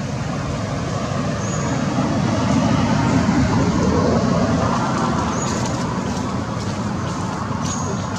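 Steady road traffic noise, swelling louder as a vehicle passes about two to five seconds in. Short high chirps come every couple of seconds.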